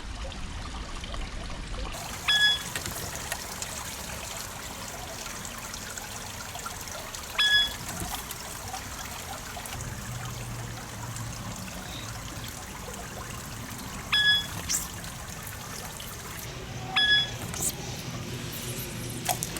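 Steady trickle of running water, broken four times at uneven intervals by a short, high-pitched chirp.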